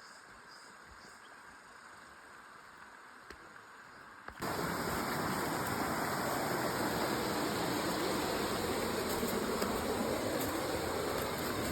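Waterfall's rushing water: a soft, steady hiss for about four seconds, then an abrupt jump to a loud, even rush of falling water.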